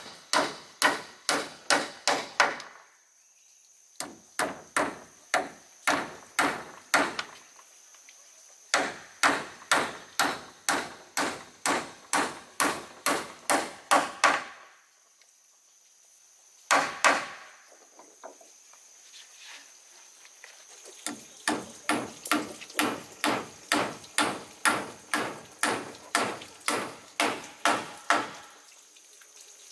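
A hand tool striking wood in quick runs of blows, about three a second, with short pauses between runs. The last run is softer and goes on longest.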